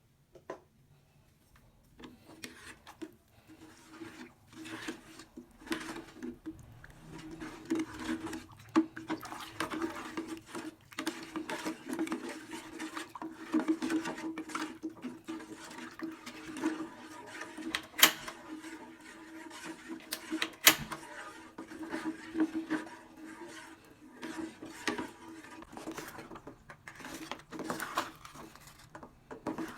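Irregular clinks, knocks and scraping of kitchen work over a steady low hum, with two sharper knocks about midway.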